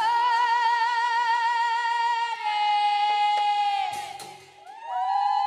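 A woman singing long, high held notes with vibrato in nagara naam style; the note steps down slightly about two seconds in, fades near the four-second mark, and a new held note begins near the end.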